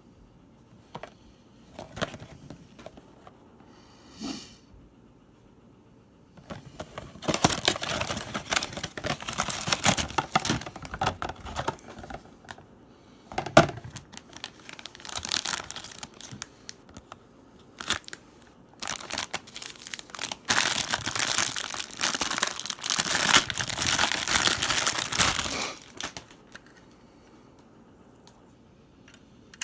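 Packaging of a Japanese washing-machine candy kit being handled and torn open: long stretches of crinkling and tearing with short gaps between.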